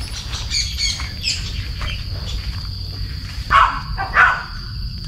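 Birds chirping, with two louder calls about three and a half and four seconds in, over a steady high insect drone.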